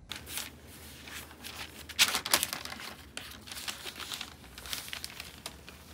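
Wrapping paper crinkling and rustling as hands fold it around a wooden knife box, with a louder burst of crackles about two seconds in.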